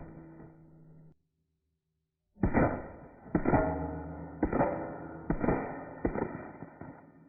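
9mm short-barreled rifle firing a string of about five shots at roughly one-second intervals, each sharp report trailing off in an echo, some closely followed by a second crack.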